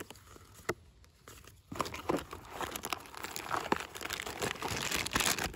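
Close crinkling and rustling, like something being handled right at the microphone. A few sharp clicks come in the first couple of seconds, then after about two seconds the crackling turns dense and continuous.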